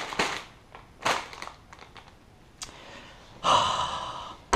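Crinkle of a Doritos chip bag being handled at the start, a few faint light knocks, then a loud breathy rush lasting about a second near the end.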